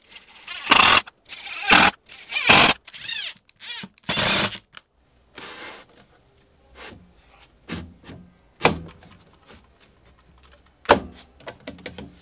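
Cordless driver running in about five short bursts, each spinning up and winding down, as it drives wood screws through the T-track into the plywood tabletop. After that come a few wooden knocks and thunks as the plywood table is set down and shifted on the drill press.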